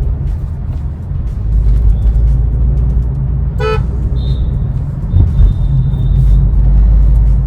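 Steady low road and engine rumble inside the cabin of a Honda Elevate driving in city traffic. A short car horn toot sounds about three and a half seconds in, followed by a faint, thin high tone held for a few seconds.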